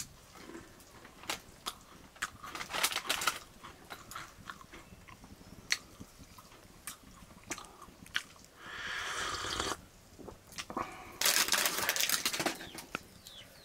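A person chewing and crunching food, with many short mouth clicks and a cluster of crunches about three seconds in. Near the end come loud slurping sips of a steaming hot drink from a cup.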